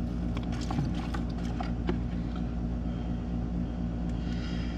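Steady low machine hum with scattered light clicks and knocks over it.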